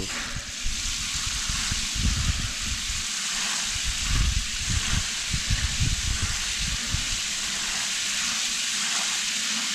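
Water spraying steadily from a garden hose's spray nozzle set to shower, pouring into a container of live crawfish to rinse and purge them in fresh water.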